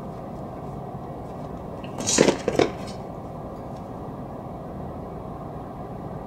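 A brief clatter of a few sharp knocks and rattles about two seconds in, over steady low room noise.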